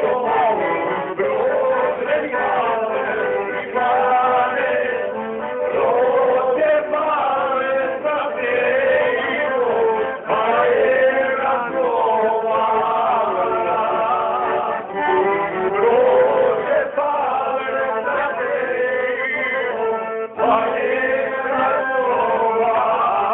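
Music with a man's singing voice over instrumental accompaniment, with a brief break about twenty seconds in.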